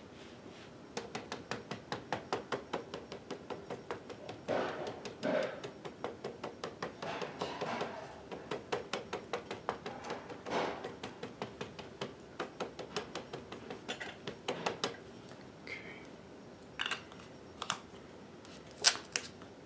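A small ink pad being dabbed over and over onto a 3D-printed TPU rubber stamp to ink it, light plastic taps about four a second. Near the end the tapping stops and a few sharper single clicks follow as the pad is handled and set down.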